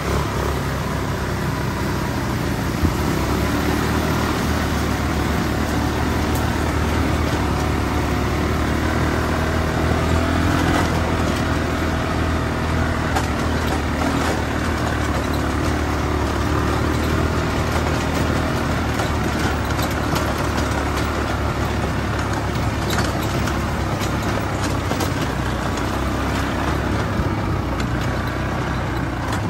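ATV (quad bike) engines running steadily at low trail speed, a constant low engine drone.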